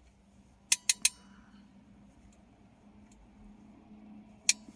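Small metal objects clinking: three quick sharp clicks that ring briefly about a second in, and one more near the end, over a faint steady hum.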